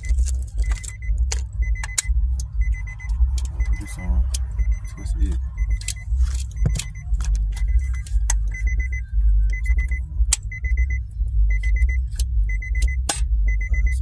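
An Infiniti G37's interior warning chime beeping steadily about once a second, over a steady low rumble. Scattered sharp clicks and knocks come from a quick-release steering wheel hub and wooden wheel being handled and fitted.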